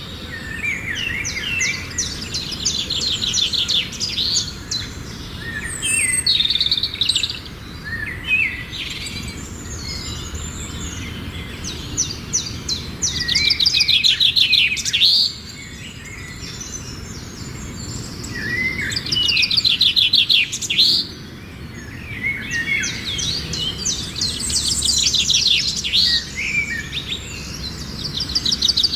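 Songbird singing: repeated phrases of rapid high trills and warbling notes, each a few seconds long, with short pauses between them, over a steady low background hiss.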